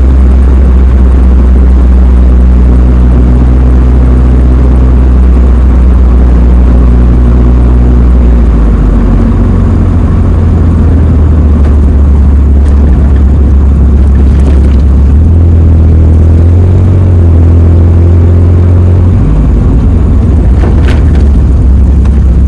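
A 1989–1997 Mazda Miata's four-cylinder engine and drivetrain running, a loud steady drone whose low pitch shifts a few times as the speed changes. A few faint clicks are heard near the end.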